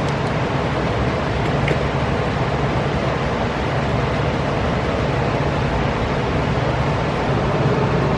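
Steady machine noise: a constant low hum under an even rushing hiss, with no change in level.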